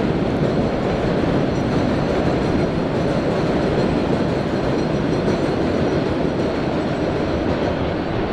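An elevated subway train running on the steel el structure overhead: a steady, loud noise of wheels on track.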